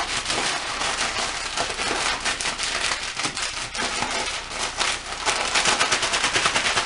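A crinkly plastic packet of crunchy crumbs being handled and crushed by hand: a dense, irregular crackling that grows heavier about five seconds in.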